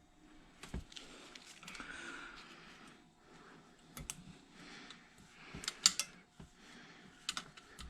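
Irregular metal clicks and taps from hand tools working the valve springs and keepers on a Honda K20 cylinder head. The sharpest clicks come about six seconds in, with another pair just after seven seconds.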